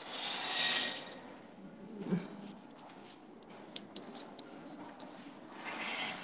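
Chalk writing on a blackboard: scratchy strokes with a few sharp taps, and a soft thump about two seconds in.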